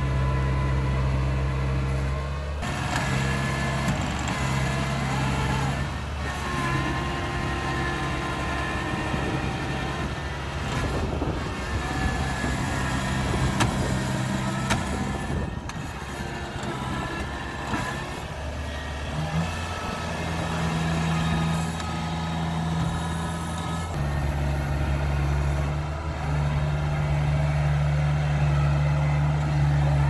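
Tracked rice combine harvester's engine running without a break as the machine works through deep mud, its note shifting a few times, with a rougher, busier stretch in the middle.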